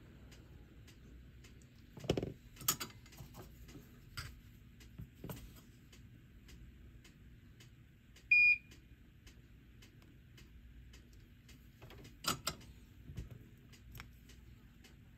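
Small tools clicking and tapping on a repair bench during soldering work, with one short, high electronic beep about eight seconds in.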